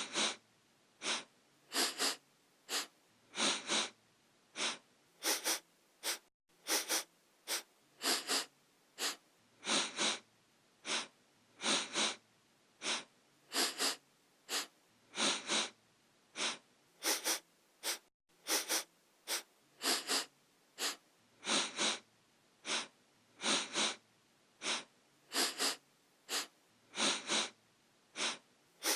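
A person sniffing through the nose over and over: short, sharp sniffs, often two in quick succession, repeating about once or twice a second.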